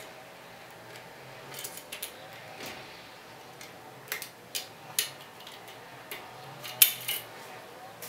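Lock-bypass tools, a thin steel wire and a tension tool, scraping and clicking in the keyway of a Thirard Adria euro cylinder: a series of small, sharp metal clicks and light scrapes, the loudest near the end.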